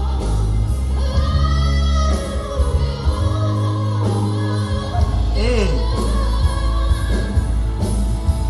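A woman singing with a live band: held, bending sung notes over a heavy bass line.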